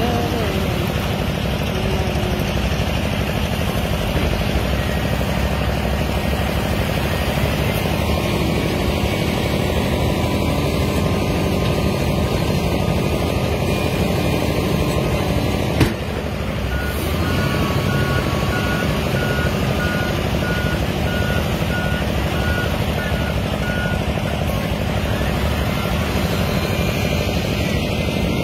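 Wheel loader's diesel engine running steadily under load as it works gravel with its bucket. Partway through there is a sharp click, then its reversing alarm beeps at one pitch, about twice a second, for several seconds.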